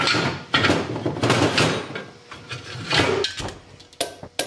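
VW Type 1 magnesium engine case half being shifted and slid on a workbench: metal scraping and clunking over the first few seconds, then two sharp knocks near the end.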